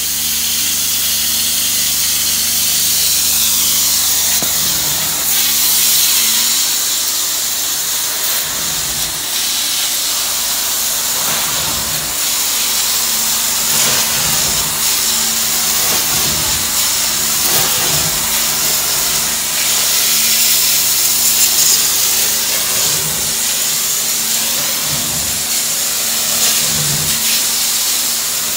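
Truck-mounted carpet-cleaning wand spraying hot water and vacuuming it back up as it is pushed across carpet: a steady loud hiss of steam and suction over the low drone of the truck-mount unit, with swells every second or two as the wand strokes back and forth.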